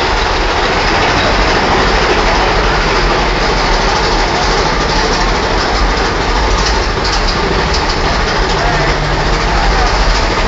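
Big Thunder Mountain Railroad mine-train roller coaster running along its track: a loud, steady rumble and rattle.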